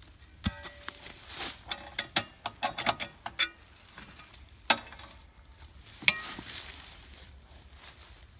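Steel log-cart brackets and plates clinking and clanking as they are handled and set down, with dry leaves crunching and rustling underfoot. A quick run of ringing metallic clinks in the first few seconds, then two loud clanks about halfway through and a second later.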